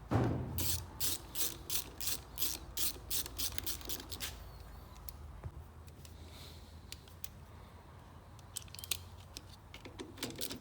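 Ratchet wrench clicking in even strokes, about three clicks a second, as it tightens a small bolt, after a knock at the start; a few more scattered clicks come near the end.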